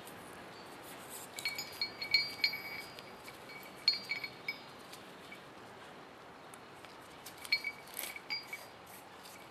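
Light metallic clinks in three short clusters, each with a brief high ringing, from the steel screw shaft of an Orange vise and the parts on it being handled while O-rings are fitted.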